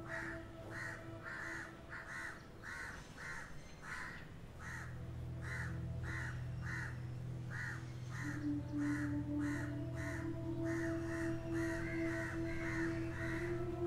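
Crows cawing in a quick, even run of short calls, about two or three a second, over a low steady drone that grows louder about five seconds in.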